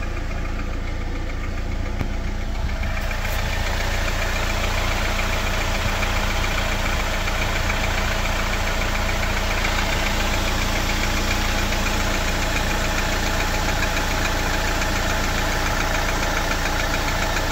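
Jeep Wrangler JL's 2.0-litre turbocharged four-cylinder idling cold, with a fast, even, light tapping knock over the running engine, louder from about three seconds in. The tapping is heard only on a cold engine and is gone once it is fully warm.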